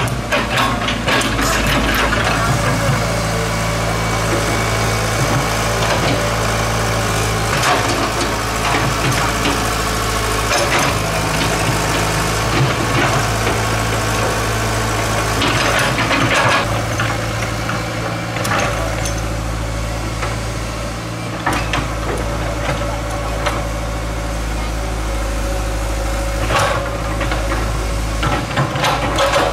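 Excavator's diesel engine running steadily as it works, with scattered knocks and clanks over the drone.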